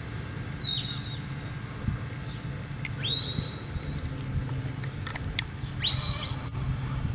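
Three whistle commands to a herding dog working cattle. The first is short and falls in pitch. The other two, about 3 s and 6 s in, each sweep sharply up and hold a steady high note, and these are the loudest sounds. A low steady hum runs underneath.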